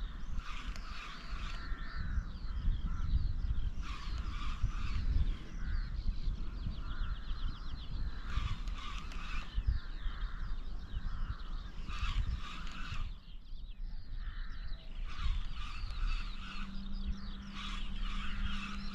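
Wildlife calling together: many short, overlapping chirping calls over a low rumble, with a faint steady hum coming in near the end.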